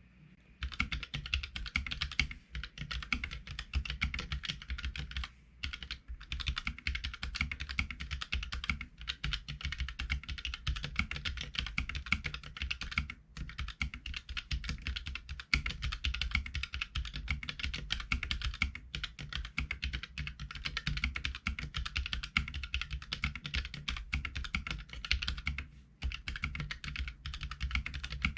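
Continuous fast typing on a Keychron K3 low-profile mechanical keyboard with red Gateron linear switches: a rapid, clicky, loud patter of keystrokes with a few brief pauses.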